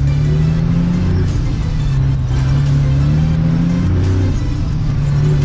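Loaded dump truck's diesel engine pulling hard, heard from inside the cab: its pitch climbs, drops at a gear change about a second in, then climbs again to another shift near four seconds.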